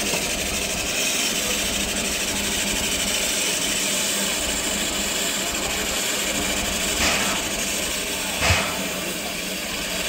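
Shay geared steam locomotive standing with steam up, hissing steadily. Two brief louder rushes of steam come about seven and eight and a half seconds in, the second with a low thump.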